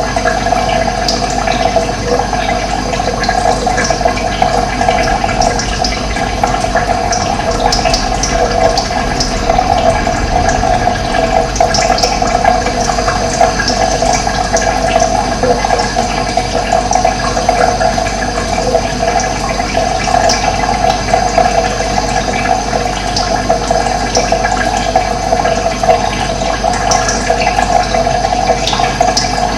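Running water flowing steadily, an even rushing sound without a break.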